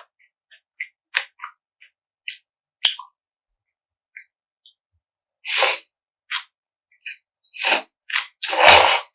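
Close-miked eating sounds of spicy mixed noodles: small wet mouth clicks and smacks of chewing, then from about five and a half seconds in a run of loud, airy slurps, each about half a second long.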